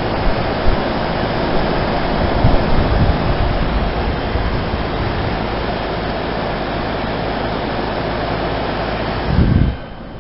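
Heat pump outdoor unit running up close: a steady rush of air with a low motor and compressor hum. About nine and a half seconds in there is a short low surge, then the sound drops off sharply.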